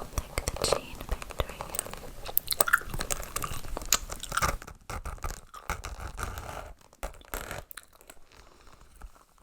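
Gum chewing close to the microphone: quick, wet mouth clicks and smacks. They thin out and get quieter over the last four seconds or so.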